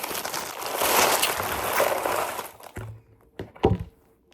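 A bag of Halloween candy rustling and crinkling as it is handled, then a few thumps about three and a half seconds in.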